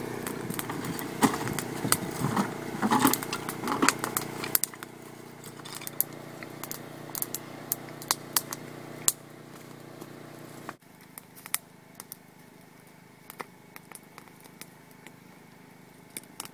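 Small campfire of dry cypress, banksia and driftwood twigs, just lit, crackling and snapping, with clicks and knocks of sticks being handled and laid on. A steady low hum lies under the first four seconds or so.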